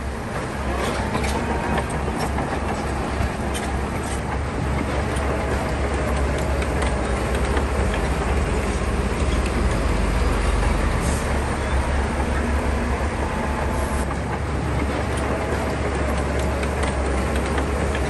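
Heavy diesel earthmoving machinery running steadily: a deep engine rumble with scattered clanks and clicks over it.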